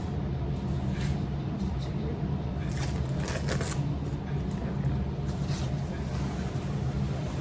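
Packaging rustling and crinkling as it is opened and handled, in short spells, the longest about three seconds in, over a steady low hum.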